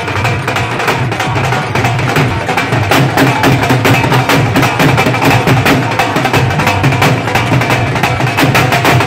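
Dhol drums played in a fast, dense rhythm with music, loud throughout.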